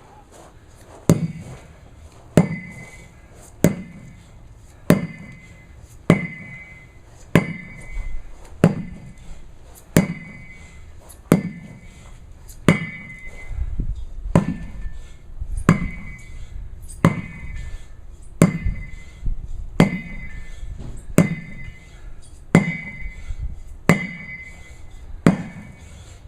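Sledgehammer striking a tire over and over at a steady pace, about one hit every second and a quarter, roughly twenty hits in all. Each hit is a heavy thud with a short ring after it.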